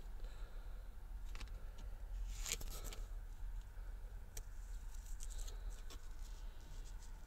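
Faint rustles and clicks of a paper window sticker being held and handled, the strongest about two and a half seconds in, over a low steady hum.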